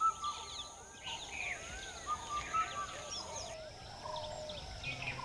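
Many birds calling and chirping at once in a countryside chorus, including a repeated series of short whistled notes, over a steady high-pitched drone. Low sustained music tones come in near the end.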